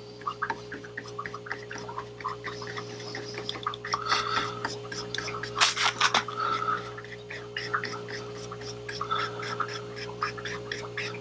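A 2-inch paintbrush stroking over and over across paper covered in wet paint, a soft scratchy rubbing of the bristles, as the tree reflections are pulled down and blended. A steady low hum runs underneath.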